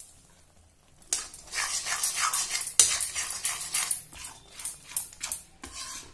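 Metal slotted spoon stirring and scraping thick pea-paste gravy around a metal kadhai, in irregular strokes starting about a second in.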